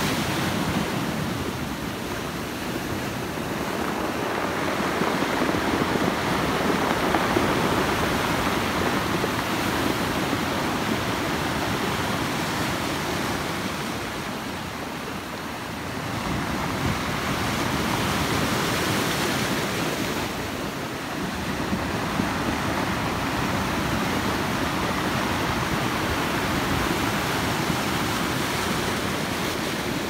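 Ocean surf washing over a cobble beach, the rounded stones rolling and clattering as the waves rush in and draw back. The rush swells and eases slowly from wave to wave.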